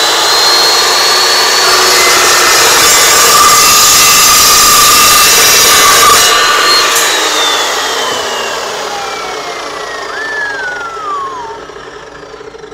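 Evolution S355MCS metal-cutting miter saw running at full speed, its 14-inch blade cutting through thin steel Unistrut channel with a high whine over dense cutting noise. About six and a half seconds in the motor is switched off, and the blade winds down with a falling whine.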